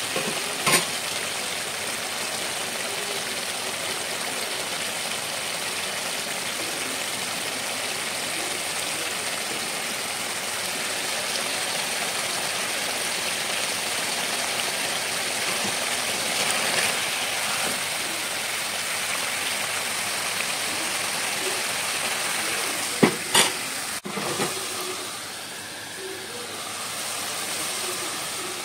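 Broiler chicken curry sizzling and bubbling in a pan: a steady hiss. One sharp knock about a second in and two quick knocks close together later on.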